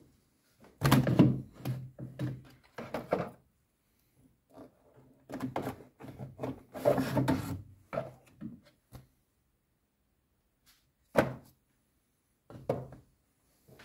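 Hard plastic air filter housing knocked and rattled by hand as its lid is lifted and the paper filter element is handled: a cluster of clunks about a second in, a longer run of knocks and scraping in the middle, then two single knocks near the end.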